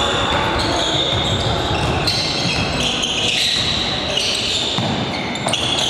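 Basketball game on a wooden gym floor: sneakers squeaking in short high-pitched chirps, a ball bouncing, and voices around the hall.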